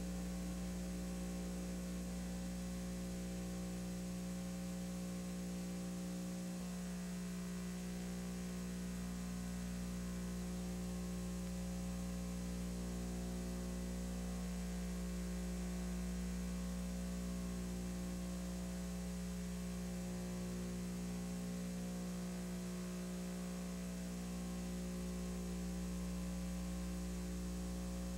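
Steady electrical mains hum with a faint hiss; nothing else is heard.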